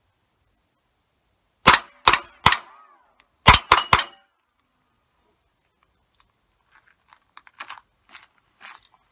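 Six suppressed rifle shots in two quick strings of three, each followed by the short ring of a steel spinner target being hit.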